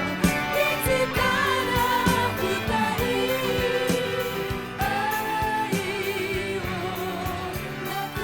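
Late-1970s Japanese pop recording playing: a steady drum beat under held, gliding melody notes.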